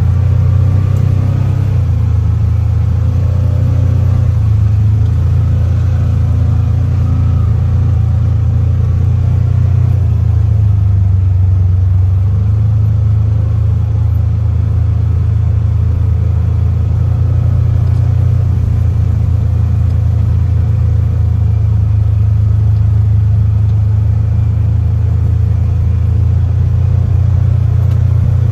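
Motor vehicle driving at a steady speed: a loud, unbroken low engine and road drone.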